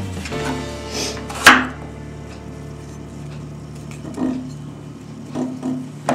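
Kitchen knife cutting raw peeled pumpkin and pieces being handled in a glass baking dish: a few sharp knocks, the loudest about a second and a half in, others near the end. Soft background music with held notes underneath.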